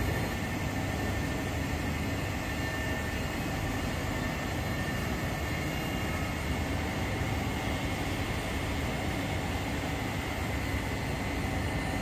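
Daikin VRV III outdoor condensing units running, back on in emergency setting with the master unit bypassed. It is a steady machine whir with a thin, high whine held over it.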